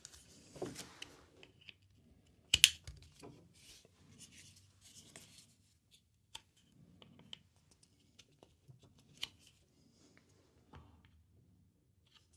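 Hard-plastic parts of a Rode NT1 shock mount and its pop filter being handled and pushed together: scattered clicks, scrapes and rustles, with one loud click about two and a half seconds in and a few sharper clicks later.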